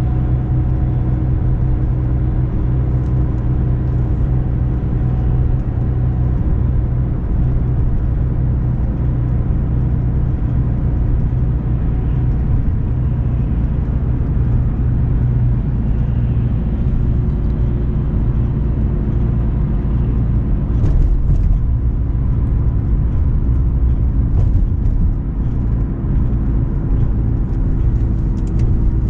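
Chevrolet Malibu being driven, heard from inside the cabin: a steady engine and road rumble. The car is running in reduced-engine-power mode with its electrics dead from a failing alternator.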